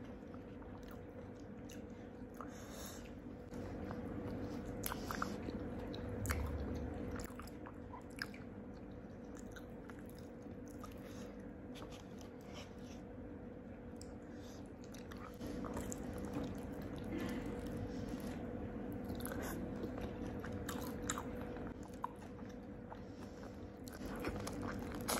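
Close-up eating sounds: biting and chewing crispy fried chicken in gulai curry sauce, with scattered sharp crunches and clicks, under a faint steady hum.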